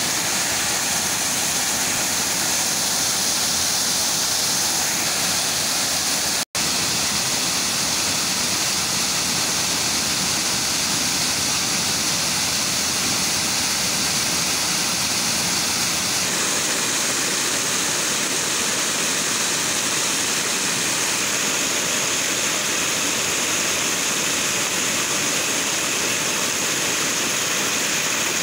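Swollen, muddy floodwater rushing and churning down a rocky stream channel in a steady, unbroken wash of noise. The sound drops out for an instant about six seconds in.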